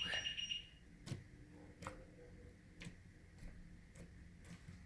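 A rapid run of electronic beeps for the first second or so, then faint scattered clicks and small pops, about one a second, from sticky slime being worked and pulled.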